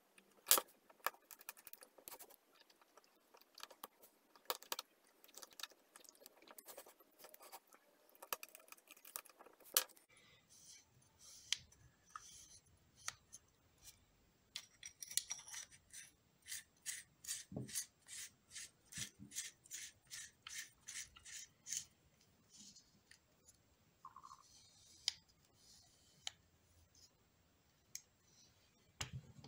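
Small metal parts of a Pentacon 29 mm f/2.8 lens being handled and fitted back together: light scraping, rubbing and clicking of rings and threads, with a run of quick even clicks, about three a second, a little past the middle.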